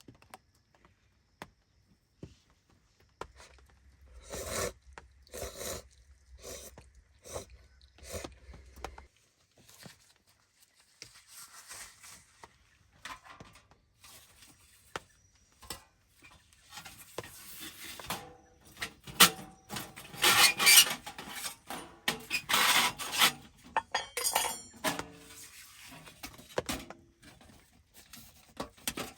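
Camp cookware and utensils clinking and scraping, with scattered clicks and knocks, busiest and loudest about two-thirds of the way in.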